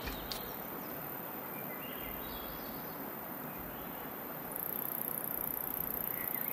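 Evening outdoor ambience: a steady even hiss with the high chirring of crickets, which grows louder from about four and a half seconds in.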